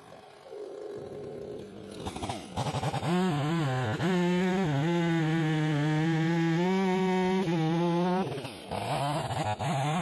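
After about two quieter seconds, a Stihl two-stroke chainsaw revs up and cuts into an ash log, running steady at full throttle under load. Near the end it eases off briefly and then pulls back into the cut.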